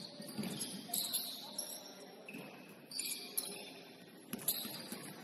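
Basketball shoes squeaking on a hardwood gym floor: several short, high squeaks as players cut and pivot, with a few sharp knocks in between.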